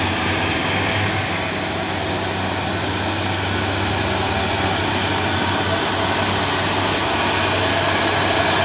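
Mitsubishi Fuso 6x2 truck's 220 PS diesel engine running as it drives past: a steady low drone with tyre noise, a little louder near the end.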